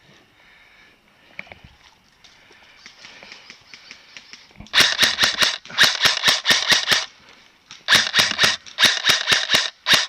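Airsoft gun firing in full-auto bursts: five rapid strings of sharp cracks, about ten shots a second, starting a little under halfway in.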